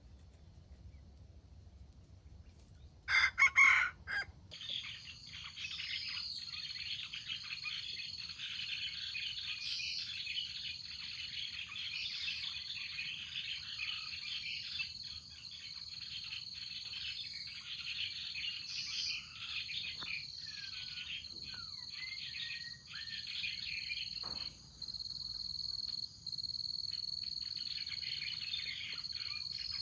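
A junglefowl rooster gives one short crow about three seconds in. Then comes a steady, high chorus of insects with songbirds chirping and calling over it.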